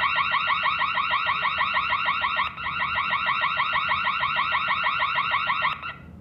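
Electronic alarm siren of a burglar alarm system going off when a door sensor is triggered. It is a loud, fast warble of rising chirps, several a second, that breaks briefly partway through and cuts off suddenly near the end.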